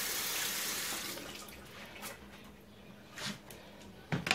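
Kitchen tap running into a steel sink as a fish is rinsed, the water stopping about a second in. Faint handling noises follow, then two sharp knocks near the end.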